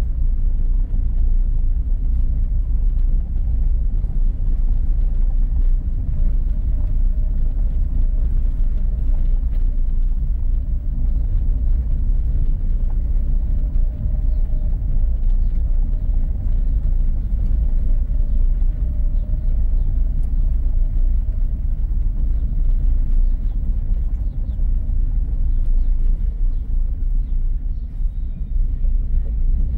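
Steady low rumble of a car rolling slowly over a cobblestone street: tyres and engine heard from inside the vehicle.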